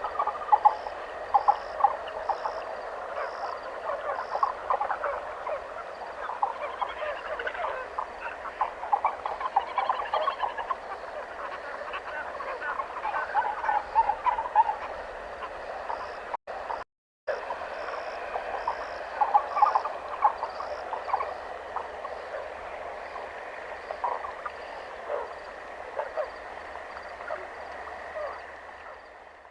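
Forest chorus of many overlapping short calls from frogs or birds, over a steady high tone. The sound drops out briefly just past the middle and fades away at the end.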